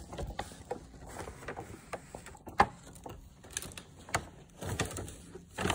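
A run of irregular clicks and knocks, several a second, from small objects being handled, with one louder knock about two and a half seconds in.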